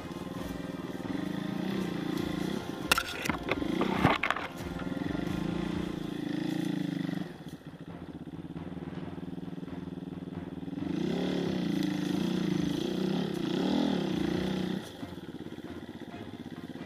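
Honda enduro dirt bike engine running under changing throttle, its pitch rising and falling in several revs, with a few sharp knocks about three to four seconds in. It eases off for a few seconds midway, then revs again.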